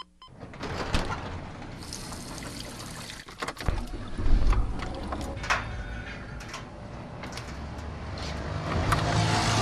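A run of everyday household sounds: water running and pouring, sharp clicks and knocks, and a low rumble about four seconds in.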